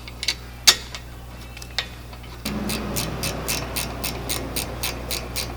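Ratchet wrench clicking as it threads in the caliper's bottom bolt. A few separate metal clicks come first, then from about halfway in a steady run of about five clicks a second.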